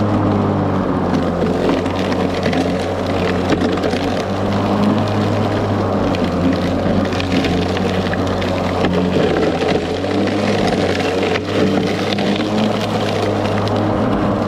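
Ryobi 40V brushless electric lawn mower running while mowing: its spinning blade gives a steady hum with many small crackling ticks of cut grass and brush over it. The hum weakens briefly about a second in and again about ten seconds in.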